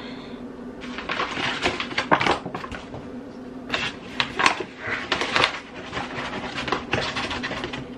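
Paper flour bag crinkling and rustling as it is unrolled and opened, a run of crackles that starts about a second in and keeps going to near the end, over a faint steady hum.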